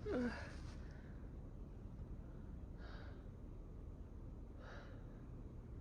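A woman takes two short, sharp breaths a couple of seconds apart as a sneeze builds but doesn't come, her nose itching from chhinkni sneezing powder.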